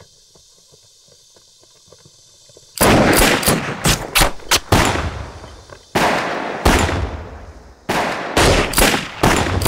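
Heavy gunfire from several guns. After a quiet start it breaks out about three seconds in as many rapid shots in overlapping bursts, with two short lulls between volleys.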